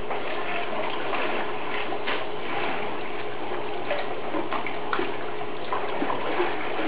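Swimming-pool water running and splashing steadily, with small scattered splashes: the pool water still moving and spilling after the earthquake's shaking sloshed it over the edge.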